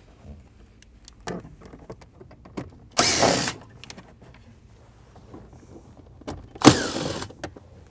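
DeWalt cordless drill/driver backing out two 7 mm dash screws: two short whirs about three and a half seconds apart, each about half a second long, with small clicks and handling sounds between.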